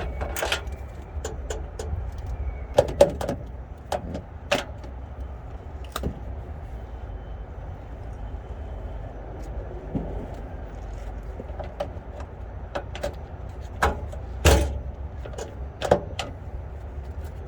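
Scattered metallic clicks and knocks from hand work on a vehicle's underside, over a steady low rumble.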